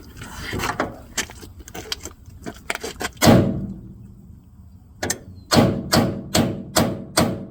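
Hammer blows on metal, knocking the heads off rivets in a bus body panel. A few light taps come first, then one heavy ringing blow about three seconds in, then from about five seconds in a steady run of hard blows about three a second, each ringing briefly.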